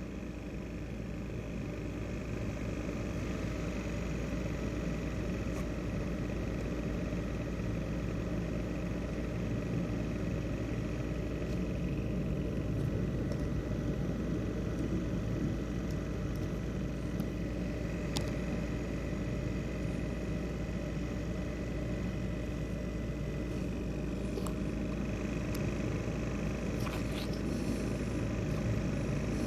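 ASUS X543UA laptop's CPU cooling fan running with bearing noise: a steady whirring hum with a thin, high whine held over it, the sign of a worn fan bearing.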